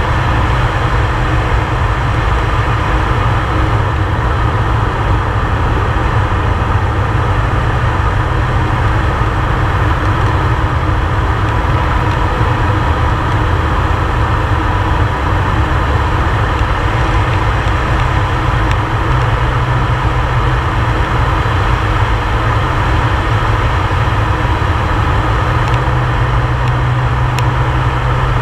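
Air Tractor 502XP's turboprop engine and propeller droning steadily in flight, heard from inside the cockpit. A low hum strengthens slightly near the end.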